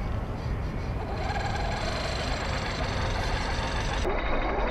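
Axial SCX10 III 1/10-scale RC crawler's electric motor and geartrain whining under load as it climbs a sand bank, with its tyres churning through loose sand. A steady whine comes in about a second in over a low rumble.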